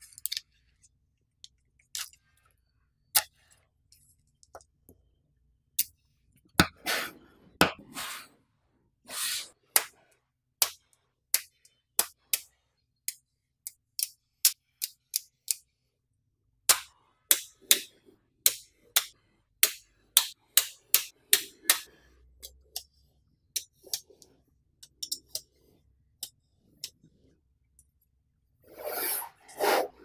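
Small magnetic balls clicking as they snap together and are pressed into sheets, in sharp irregular clicks, sometimes several a second. There are a few short rattles, and a dense clattering burst near the end.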